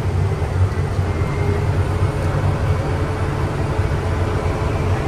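Self-propelled crop sprayer's engine running steadily under way, heard inside the cab as an even low drone with a steady hiss of cab and travel noise.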